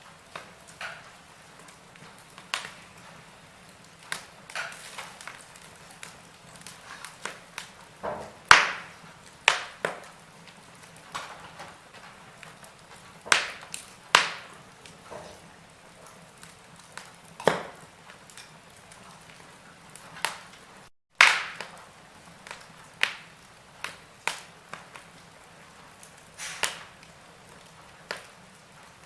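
Wood fire burning in a fireplace, crackling: irregular sharp pops and snaps of burning logs over a faint steady hiss, with a brief dropout about two-thirds of the way through followed by one of the loudest pops.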